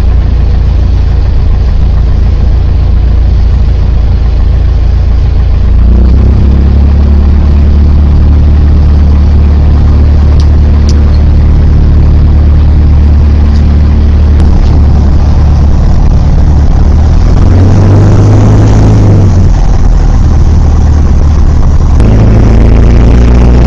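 Light aircraft's engine and propeller droning steadily in flight, with the engine note shifting about six seconds in and again near the end.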